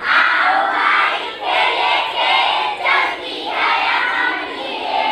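A large group of young children chanting a Hindi rhyme together, loud and ragged, in several short phrases with brief breaks between them.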